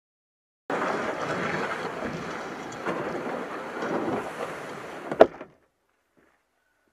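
Kayak hull dragged through dry grass and over gravel, a rough scraping rustle, with a sharp knock about five seconds in before it stops suddenly.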